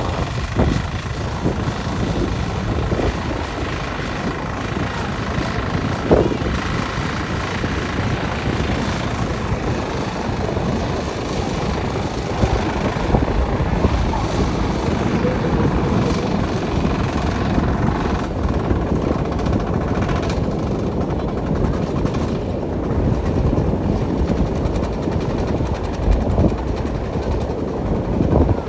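Fishing boat's engine running steadily, with a couple of brief knocks.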